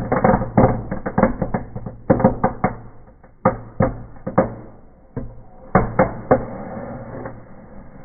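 A bundle of small firecrackers going off in a fireplace. It starts as a rapid string of bangs, then thins to scattered single cracks from about three seconds in and dies away near the end.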